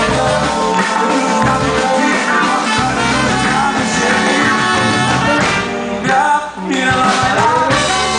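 Batucada band playing live: dense samba percussion with other instruments, and a short break in the music about six seconds in.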